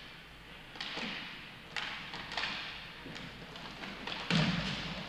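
Inline hockey play: sharp knocks of sticks and puck in irregular succession, with a heavier thud about four seconds in.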